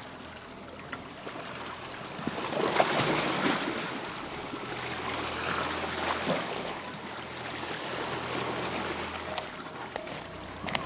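Sea water washing over and trickling between the rocks of a rocky shoreline, the surge swelling louder a couple of times.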